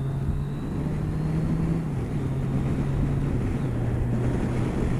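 Kawasaki GTR1400's inline-four engine running under way, with wind and road noise on the microphone. The engine note steps up about half a second in, drops back around two seconds, and drops again near four seconds.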